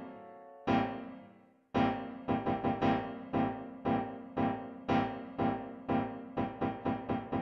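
Background music played on a piano-like keyboard: a couple of single struck notes that ring and fade, then from about two seconds in a steady run of notes that quickens near the end.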